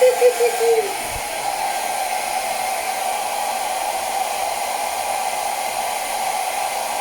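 Hair dryer blowing steadily on its lowest, warm setting.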